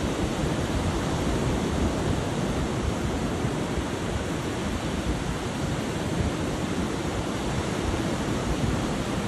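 Surf breaking and washing up a sandy beach in a steady wash of noise, with wind buffeting the microphone.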